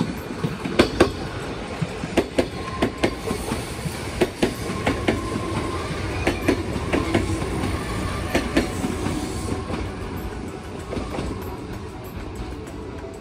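Kintetsu electric train running on curved track: a rapid, uneven clickety-clack of wheels over rail joints, with a faint steady whine under it from about two seconds in. The clatter eases off about ten seconds in.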